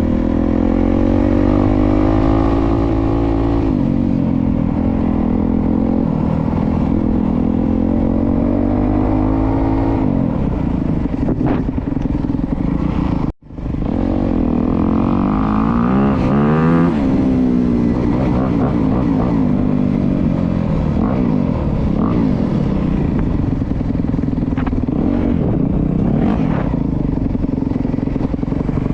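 Honda CRF250R's single-cylinder four-stroke engine under riding, its pitch climbing and dropping as the throttle is opened and closed through the gears. The sound cuts out for an instant about halfway through, then comes back with a quick rise and fall in revs.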